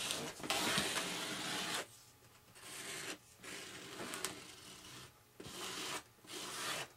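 A scraper dragged over an EPP foam wing, spreading epoxy: one long, louder scraping stroke, then several shorter, quieter strokes with pauses between them.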